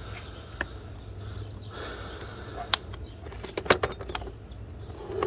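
Scattered clicks and light rattles of a plastic tool case and the tools inside it being handled, with the sharpest knocks a little past the middle.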